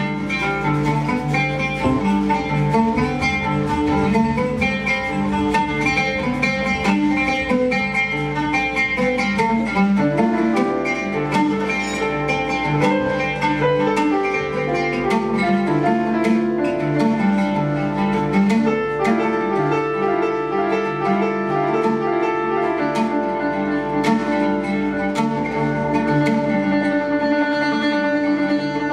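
Live ensemble music with a plucked oud to the fore over electric bass and piano, and frequent light percussion strikes.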